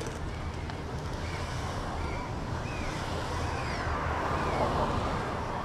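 Surf washing on a shore with wind buffeting the microphone, swelling about four to five seconds in as a wave comes in. Several short bird calls sound faintly above it.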